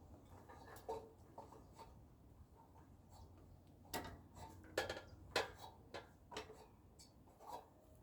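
A series of light knocks and clicks at irregular spacing, about nine in all, the loudest bunched together in the middle.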